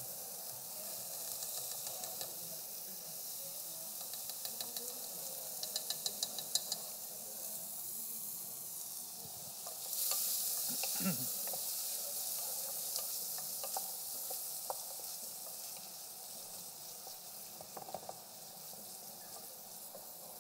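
Onions and celery sweating in butter in a stockpot, a steady sizzle, with a wooden spoon stirring and scraping through them. A run of quick clicks comes around six seconds in, and the sizzle gets louder about ten seconds in.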